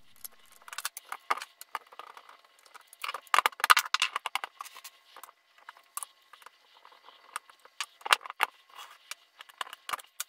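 Quick metallic clicks and clinks of a Winchester 1886 lever-action rifle's steel parts, pins and tools being handled on a wooden bench as the rifle is taken apart. The clatter is densest about three to four seconds in.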